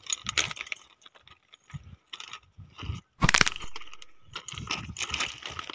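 Scattered crunching and clicking, like footsteps on stone ballast, with one loud sharp crash about three seconds in.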